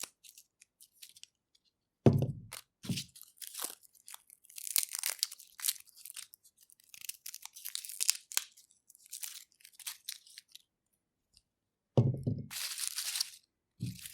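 Garlic being peeled: dry papery skins crackling and tearing off the cloves. A sharp thump about two seconds in and again near the end.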